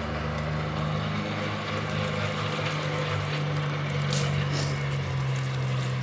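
A steady low mechanical hum, like a motor or engine running, with one short click about four seconds in.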